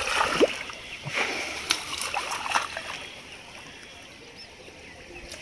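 Shallow pond water splashing and sloshing as a person wades through it and drags a cast net, with a few sharp splashes in the first three seconds, then quieter.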